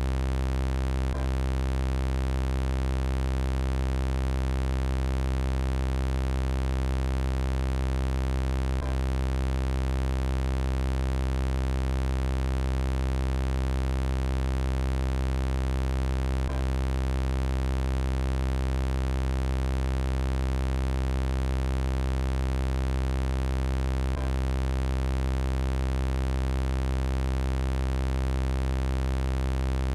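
Synthesized robot-voice sound effect held as a steady, unchanging electronic buzzing drone with many overtones, looped, with a faint click about every seven and a half seconds where the loop repeats.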